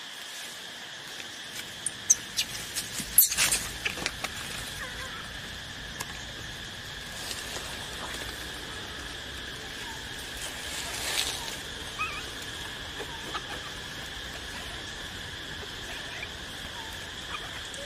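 Steady high insect drone at two pitches, with scattered rustles and clicks, busiest about two to four seconds in, and a few short faint squeaks.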